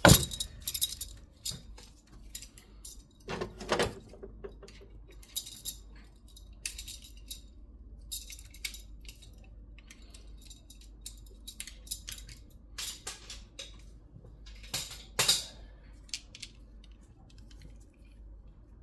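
Metal hand tools clinking and rattling: a socket and breaker bar being handled and fitted, with irregular light clanks and a few louder knocks.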